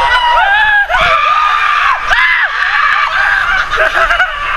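Several people screaming in long, high-pitched, overlapping shrieks while riding down an enclosed water slide.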